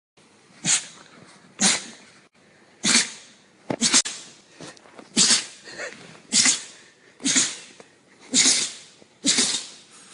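A rapid string of about ten short, sharp sneezes, roughly one a second.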